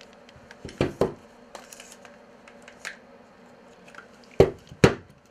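Hard clicks and knocks of a multiplier fishing reel's parts being handled and fitted back together: two knocks about a second in, then two louder ones half a second apart near the end.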